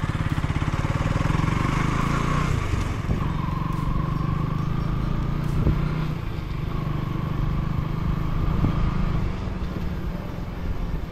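Motor vehicle engine running steadily while driving along, with a faint whine that rises slightly three times.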